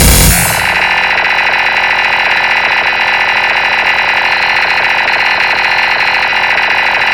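Dense MIDI keyboard playback: a loud cluster of many notes held together and pulsing rapidly and evenly, sounding like an alarm ringing, after a loud hit at the start.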